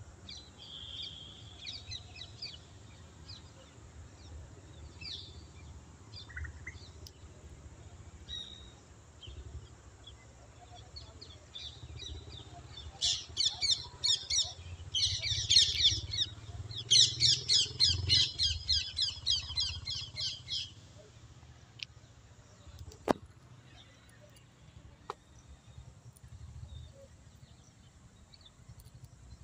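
Birds chirping in the open. In the middle one bird calls loudly for about seven seconds, in fast runs of sharp repeated notes. A low rumble runs underneath, and there are two sharp clicks near the end.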